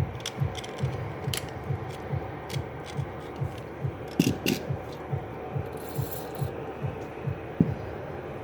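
Rubbing and scraping with sharp small clicks from hands working on laptop parts, over a steady low thump about two and a half times a second.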